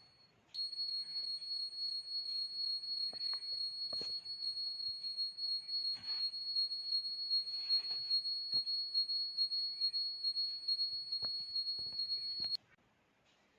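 Electronic buzzer of an earthquake alarm model sounding a steady high-pitched tone, the alarm triggered, then cutting off suddenly about a second before the end. Faint clicks and knocks are heard underneath.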